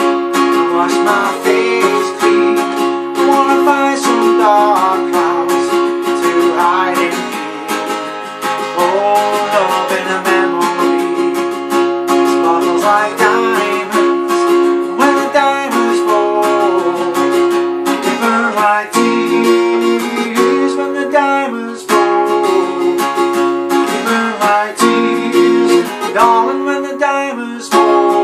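Acoustic guitar with a capo, strummed and picked chords played continuously in a small room, an instrumental passage of a folk song.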